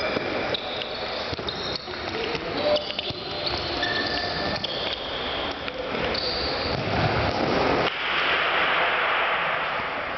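Sports shoes squeaking on a sports-hall floor during a futsal match: many short, high squeaks as players run and turn, with a few dull ball thumps. About eight seconds in, a hissing rush of noise takes over.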